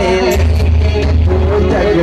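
A man sings a naat into a microphone in a long, wavering, held melodic line, amplified and loud. A deep, steady bass sound runs underneath and drops out briefly a couple of times.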